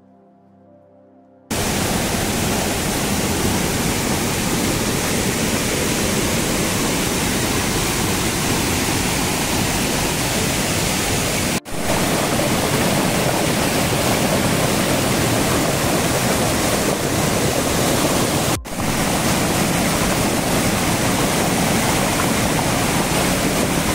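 A rain-swollen stream rushing over a small waterfall: a loud, steady rush of white water that starts suddenly about a second and a half in and is broken twice by a momentary dropout. It is faint before it comes in.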